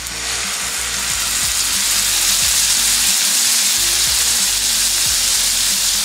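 Salmon fillet frying in hot fat in a nonstick pan. The sizzle swells over the first second as the fillet goes in, then holds steady and loud.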